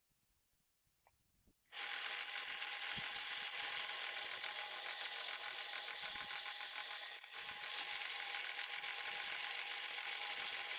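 Drill press switched on a little under two seconds in and running steadily, its twist bit drilling into a metal bar. The sound dips briefly about seven seconds in.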